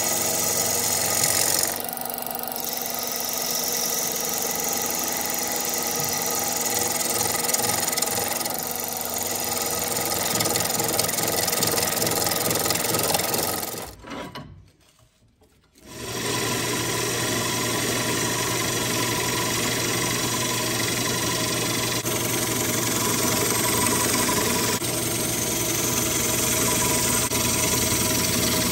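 Wood lathe motor running while a bowl gouge cuts into a spinning ambrosia maple bowl blank, a steady hum under a continuous scraping, shaving sound. About halfway through it drops to near silence for a couple of seconds, then the lathe and cutting resume.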